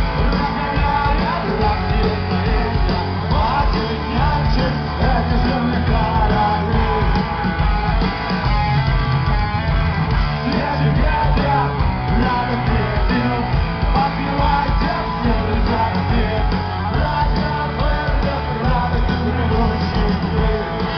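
Live rock band playing amplified, guitar to the fore, with a voice singing over it.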